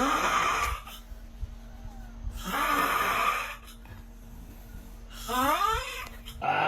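A person snoring, with a snore about every two and a half seconds; one snore about five seconds in ends in a rising whistle, and another starts near the end.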